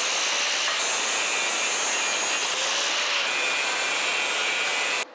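Abrasive chop saw cutting through a threaded steel bolt clamped in its vise, the cut-off wheel grinding through the metal with a steady hiss and a slight rise and fall in pitch. It stops suddenly near the end.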